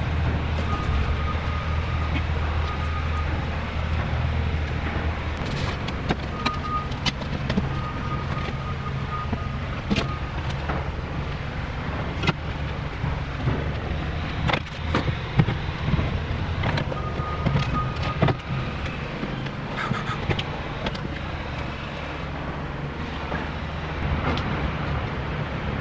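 Steady low drone of nearby motor traffic and engines, with a faint intermittent high tone over it. Occasional sharp knocks and rustles come from handling the wire-framed mesh tent and setting a block down.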